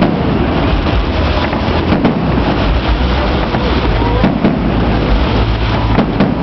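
Fireworks display heard amid a chattering crowd of spectators, with a low steady rumble and a few sharp cracks about two, four and six seconds in.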